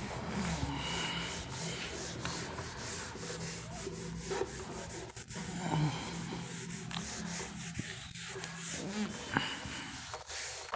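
Rubbing and scratching noises, with scattered small clicks, over a low steady hum.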